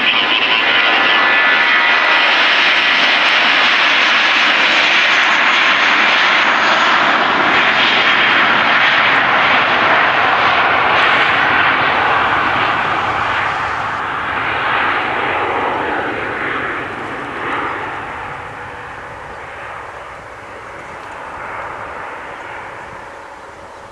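Airbus A320's jet engines at takeoff power during the takeoff roll: loud and steady as the aircraft passes close by, then fading from about halfway through as it accelerates away down the runway.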